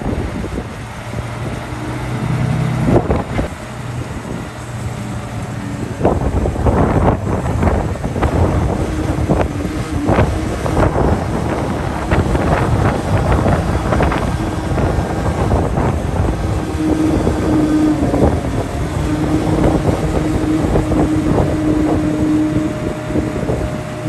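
Hyundai 8x4 dump truck's diesel engine running, revving up about six seconds in to drive the hydraulic pump as the tipper bed rises. A steady hydraulic whine comes in after about nine seconds and grows louder, over the rough rumble of dirt sliding out of the raised bed. Wind buffets the microphone.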